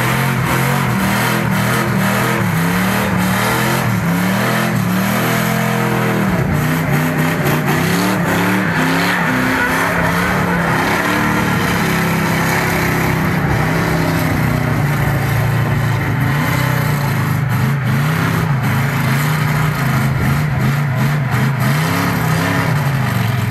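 Car engine revving hard, its pitch rising and falling again and again during a burnout, over the noise of rear tyres spinning and squealing on concrete.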